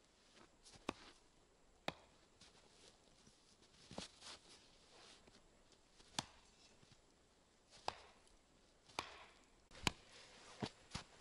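Wood being chopped with a blade: about nine sharp, irregular strikes spaced one to two seconds apart, the loudest near the end, with faint rustling between strikes.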